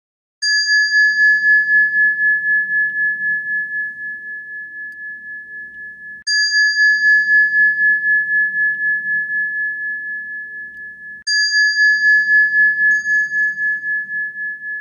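A high, pure, bell-like chime struck three times about five seconds apart, each note ringing on with a slow pulsing waver as it fades, with a lighter extra tap near the end.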